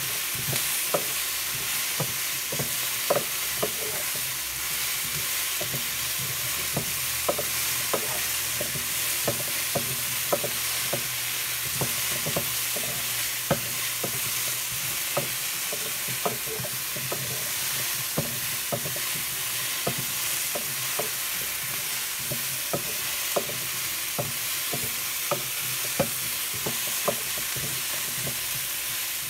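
Cut potatoes, carrots and onions sizzling in a frying pan with a steady hiss, while a wooden spoon stirs them, knocking and scraping against the pan in irregular clicks about once or twice a second.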